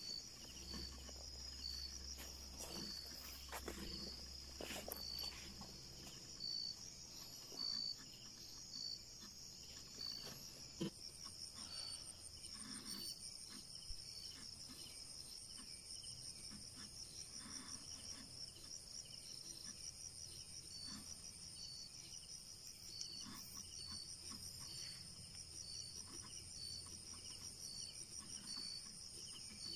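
Night insects calling steadily: a continuous high, rapidly pulsing trill with a separate chirp repeating a little faster than once a second, and a second, higher trill joining about 11 seconds in. Faint scattered rustles and one sharp click sit beneath the chorus.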